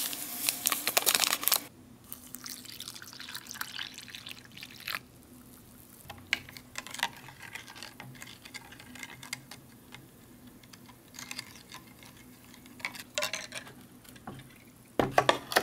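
Sugar shaken from a paper packet into a cup, the packet crinkling for about the first two seconds, then a white plastic spoon stirring instant coffee in a ceramic cup: small scattered clicks of the spoon against the cup and light liquid swishing, with a few louder clicks near the end.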